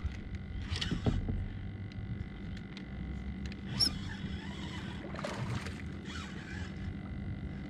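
Spinning reel being worked against a hooked big red drum, over a steady low hum, with a few short faint sounds scattered through.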